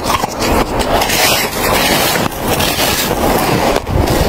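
Close-miked crunching of packed snow being bitten off a snowball and chewed: a dense, continuous run of crisp crunches.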